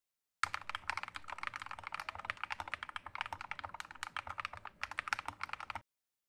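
Rapid typing on a keyboard: a fast, uneven run of key clicks that starts about half a second in and stops shortly before the end, with a brief break a little before five seconds in. It serves as a typing sound effect for text appearing letter by letter on screen.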